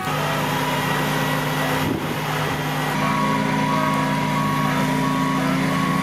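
Case IH combine harvester's diesel engine running steadily. From about halfway in, a short beep repeats at an even pace, like a reversing alarm.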